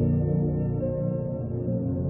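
Ambient meditation music of steady, layered synthesizer tones built around a 528 Hz solfeggio tone, with a new held note entering just under a second in.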